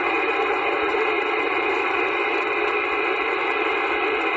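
Steady hiss of receiver static from an AnyTone AT-6666 radio's speaker, the squelch open on a channel with no station coming through.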